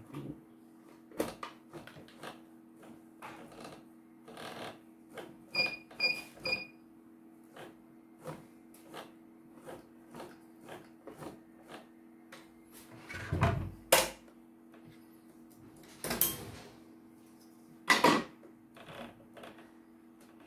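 Clicks, knocks and rattles from the opened CNY computerised embroidery machine as its handwheel and mechanism are turned and handled by hand, checking how stiffly it turns, with a few louder knocks and three short high-pitched chirps about six seconds in. A steady low hum runs underneath.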